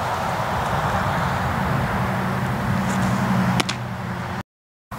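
A steady low mechanical drone runs underneath, with one sharp leather smack of a baseball landing in a glove about three and a half seconds in. The sound cuts out suddenly for a moment near the end.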